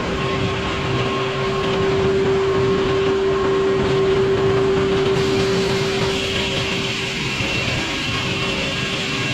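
Sawmill sawing poplar wood: a steady mechanical din with a held whine that gives way to a higher whine about six seconds in.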